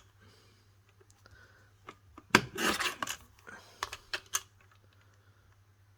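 Mini paper trimmer's blade sliding through cardstock: one rasping cut of about a second, roughly two seconds in, followed by a few sharp clicks as the trimmer and paper are handled.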